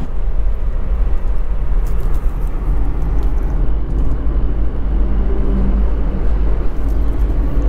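Steady road and engine rumble heard inside a Tata Tiago hatchback's cabin while it drives along a highway, strongest in the deep bass and unchanging throughout.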